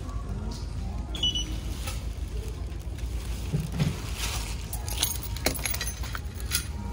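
Retail checkout counter sounds: a short electronic beep about a second in as an item is scanned, then scattered clicks and clatter of items being handled at the register, over a low steady rumble and faint background music.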